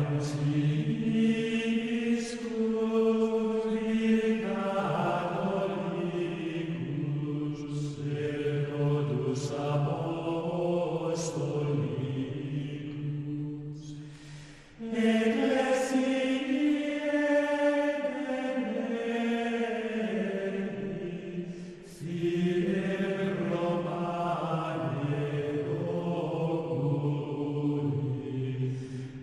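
Background music: a slow chant sung in a low male voice range, with long held notes in phrases. The singing breaks off briefly about halfway through and again about three-quarters of the way through.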